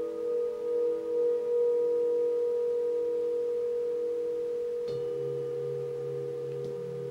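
Tibetan singing bowls ringing with long, steady tones, wavering at first as they ring out. About five seconds in, a deeper bowl is struck with a padded mallet and its lower hum rings on under the others.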